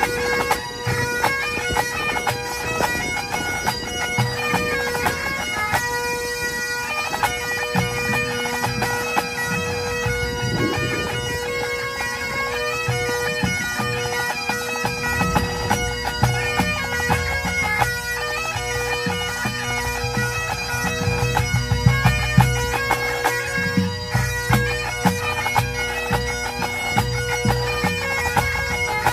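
Full Highland pipe band playing a medley: massed Great Highland bagpipes sounding a fast chanter melody over their steady drones, with the drum corps' snare, tenor and bass drums beating underneath. The drums hit a run of louder accents a little after two-thirds of the way through.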